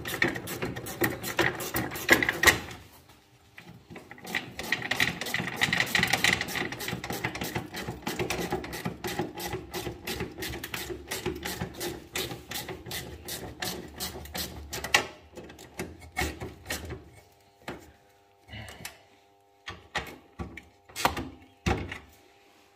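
A hand tool turning screws on a metal bracket under a car's dashboard, heard as fast, dense mechanical clicking. The clicking breaks off for about a second near three seconds in, then runs on, and gives way to a few separate knocks over the last five seconds.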